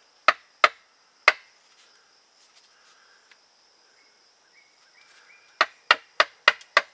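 Wooden baton striking the spine of a knife to split the end of a green sapling bow stave: three sharp knocks about a second in, then a quicker run of knocks, about four a second, starting near the end.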